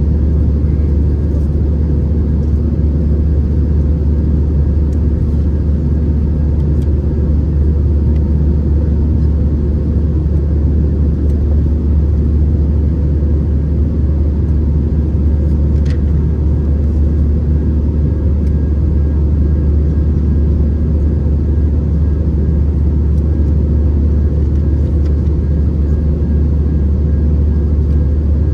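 Steady cabin drone of an Airbus A319-111 in flight, heard from a window seat: the engines and airflow make an unchanging low rumble with a few faint steady whines above it.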